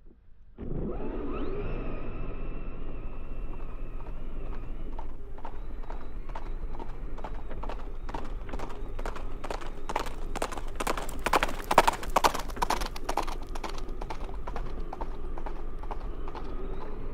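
Electric motor of a Losi RC truck whining steadily as it drives, starting abruptly. A quick patter of clicks and knocks joins in from about six seconds in, thickest and loudest from about ten to thirteen seconds.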